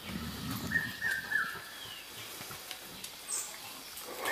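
Forest birds calling: a repeated short call of two notes stepping down in pitch, heard about a second in and again at the end, with a few brief higher chirps. A short low rumble sounds at the very start.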